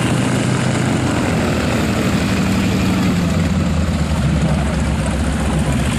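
Propeller aircraft engine droning steadily, with a dense rushing noise over it.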